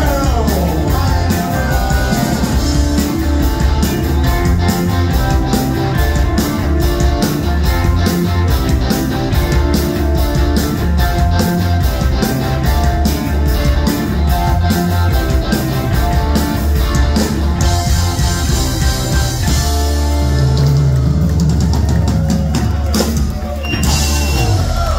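Live rock band playing loud: electric bass, electric guitar, keyboards and a drum kit keeping a fast, even beat of about four hits a second. The drumming stops about two-thirds of the way through and the band holds one low sustained chord, which cuts off sharply at the very end.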